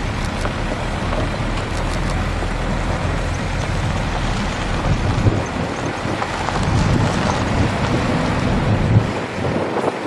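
Fire service tanker truck's engine running as it drives along a dirt track, under a steady rushing noise. The low engine hum drops away about nine and a half seconds in.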